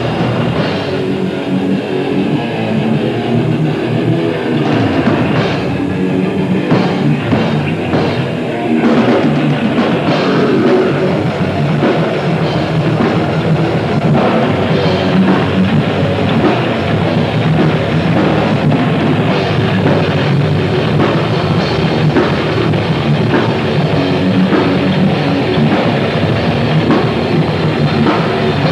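Grindcore band playing live: loud distorted guitars over fast, dense drumming, continuous throughout.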